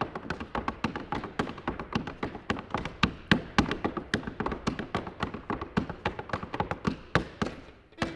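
Wooden-soled clogs stepping on a wooden floor, unaccompanied: a fast, rhythmic run of sharp taps several to the second, tailing off near the end.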